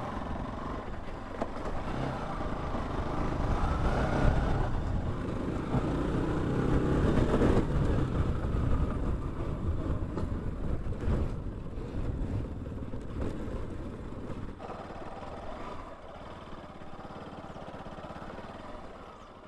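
Motorcycle engines running as the bikes ride along a rough dirt trail. The sound drops noticeably lower for the last few seconds.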